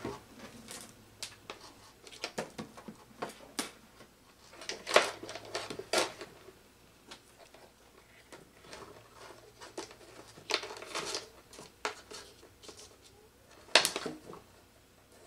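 Irregular small clicks, ticks and rustles of hands handling and twisting insulated control wires, with a sharper snap about a second before the end.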